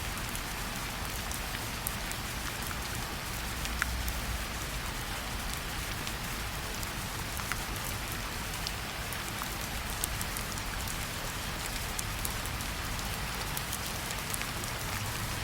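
Steady rainfall, an even hiss of rain with scattered individual drops ticking.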